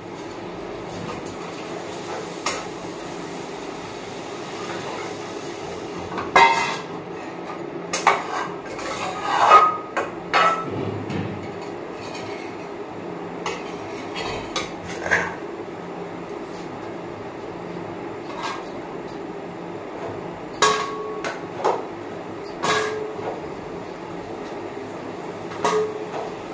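Steel kitchen utensils clinking and knocking: a ladle and a steel plate against a steel kadai on a gas stove. There are about ten scattered knocks over a steady background hum.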